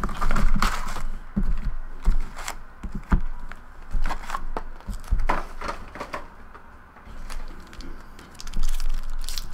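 Trading card packs being pulled out of an opened cardboard hobby box and stacked on a table: irregular rustles, light clicks and taps of the cardboard and wrapped packs being handled.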